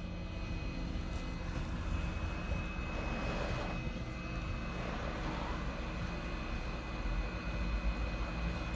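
Hot air rework station blowing steadily, with a thin steady whine, as it reflows the solder under a tiny diode on a phone logic board.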